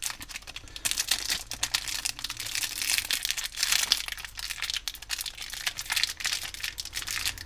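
Clear plastic packaging bag crinkling and crackling as a hex driver is worked out of it, a tight fit that is hard to get out.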